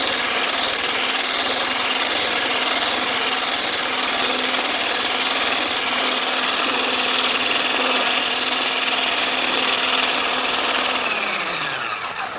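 A small electric appliance motor running steadily with a loud, even rushing noise and a faint hum, then winding down in pitch and stopping as it is switched off near the end.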